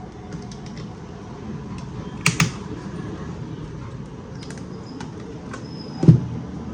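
Small plastic clicks and taps from handling a laser printer's toner cartridge as its two halves are put back together, with a sharp double click about two seconds in and a louder knock near the end.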